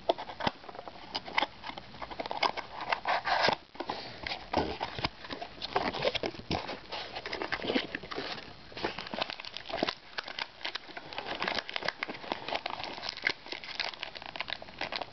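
Plastic wrapping on trading-card packaging crinkling and tearing as it is pulled open, in rapid, irregular rustles.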